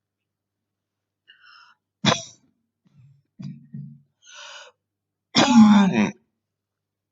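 A woman coughing with bronchitis. A short, sharp cough comes about two seconds in, followed by a low throaty sound and a breath in. A loud, harsh, voiced cough near the end is the loudest sound.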